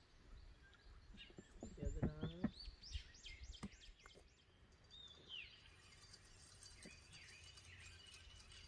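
Small birds chirping faintly: a quick run of short sweeping notes a few seconds in, then scattered softer chirps.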